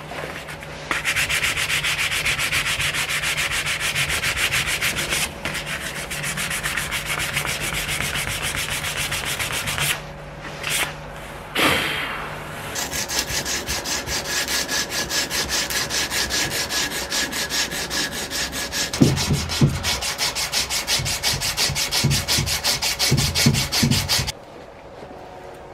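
Sandpaper worked by hand over a wooden saw handle, taking off the old stain, in rapid back-and-forth strokes of about four a second. The sanding breaks off briefly about ten seconds in, and a few low thuds come near the end.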